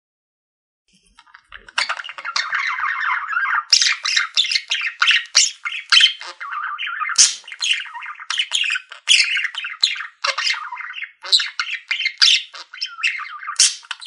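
Budgerigars chattering: a fast, unbroken run of chirps, squawks and warbled notes that starts about a second in.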